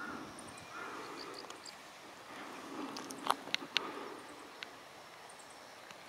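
Birds calling outdoors: short, repeated arched calls with faint high chirps over them. A little past three seconds in come three sharp clicks or taps close together, the loudest sounds.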